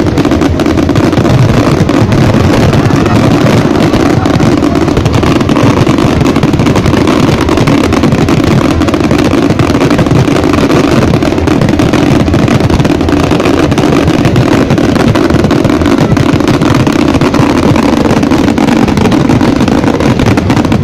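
A dense fireworks barrage: many shells bursting at once, their overlapping booms and crackle merging into one continuous loud rumble with no gaps.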